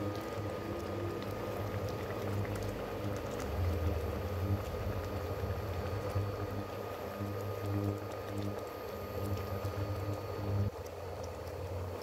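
Thick curry gravy bubbling steadily around chicken pieces simmering in a nonstick wok. Under it runs a low hum that drops away near the end.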